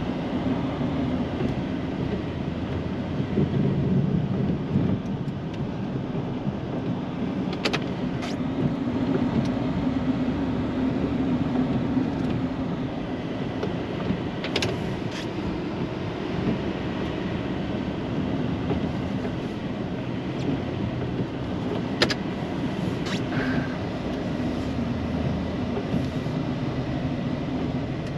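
Plow truck's engine running steadily while pushing heavy wet snow, a continuous low drone with a handful of short sharp knocks from the plow and truck.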